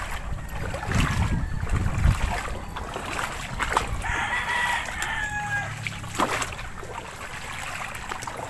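A rooster crowing once, about four seconds in, a single drawn-out call that falls away at the end. Low thumps of footsteps on a wet dirt path and some wind on the microphone are heard in the first couple of seconds.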